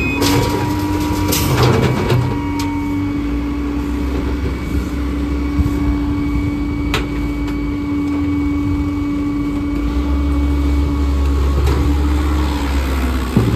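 Diesel engines of a wheel loader and a rear-loader garbage truck running, with a steady hydraulic drone, while a steel dumpster is held tipped into the truck's hopper. A few sharp metal clanks come in the first seven seconds. The engine rumble grows heavier about ten seconds in, and there is a knock near the end.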